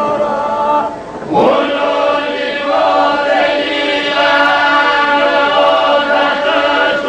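Men's group singing a Gjirokastër polyphonic folk song of the oda: the group holds a steady drone under the ornamented lead melody. A new phrase begins about a second in, after a brief breath.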